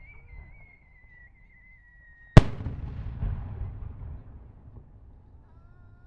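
A firework shell whistles as it climbs, the whistle sliding slowly down in pitch. A little over two seconds in it bursts with one sharp, loud bang, followed by a rumbling, crackling echo that dies away over about two seconds.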